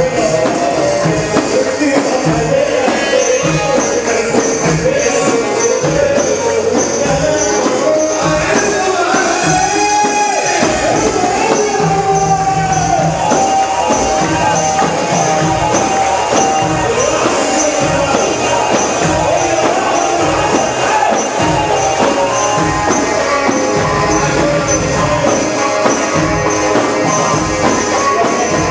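Egyptian shaabi band music played without singing: a tambourine jingles a steady beat under a winding, ornamented melody.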